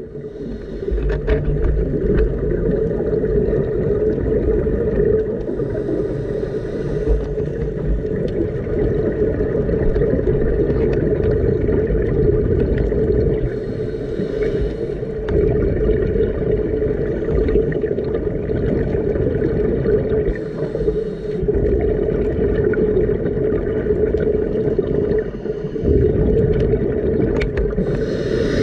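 Heard underwater: the steady, pitched hum of a boat engine carrying through the water, broken four times, about every seven seconds, by the bubbling rush of a scuba diver exhaling through a regulator.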